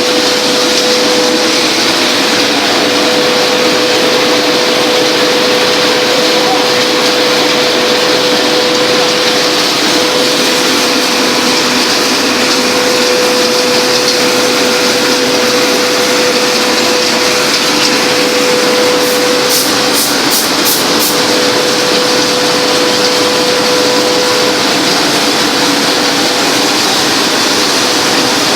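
Wood pellet production line machinery running: a loud, even mechanical noise with a steady hum. About two-thirds of the way in there is a quick run of about five sharp ticks.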